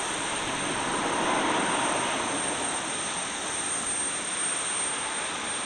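Airbus A320's jet engines running at taxi power as the airliner rolls along the taxiway: a steady rushing noise with a thin, high-pitched whine over it.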